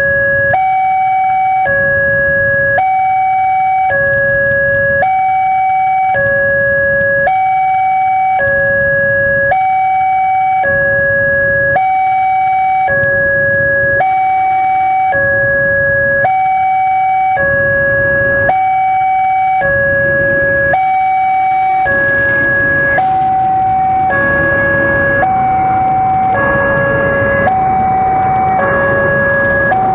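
Railway level-crossing warning alarm, an electronic two-tone signal sounding continuously, a low tone and a higher tone each held about a second. It means the barrier is down for an approaching train. A broad rushing noise builds under it over the last several seconds.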